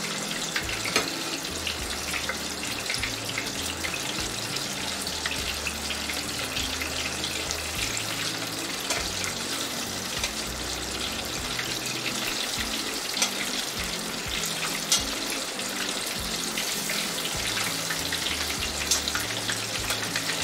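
Battered chicken pieces deep-frying in oil at a low temperature, about 130 °C, for the first fry: a steady, even sizzle, with a few sharp clicks of metal tongs against the pot as the pieces are turned. Background music plays underneath.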